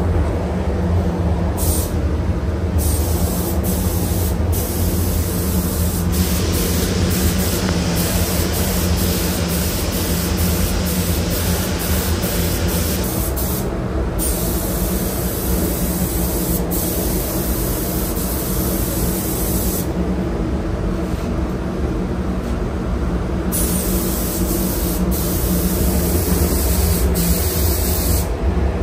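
Compressed-air gravity-feed paint spray gun hissing in long passes as truck driveshafts are painted. The hiss stops briefly about 13 seconds in and for a few seconds around 20 seconds in. A steady low hum runs underneath.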